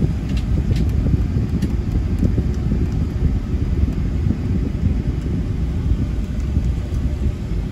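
Boeing 757-300 cabin noise while taxiing: a steady low rumble from the engines and the airplane rolling, with a few faint clicks.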